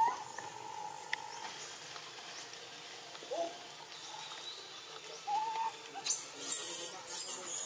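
Macaque calls: a few soft coos early on, then, from about six seconds in, loud, very high-pitched squeals that glide downward.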